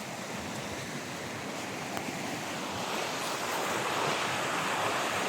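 Rushing river water, a steady hiss of flowing water that grows louder about halfway through.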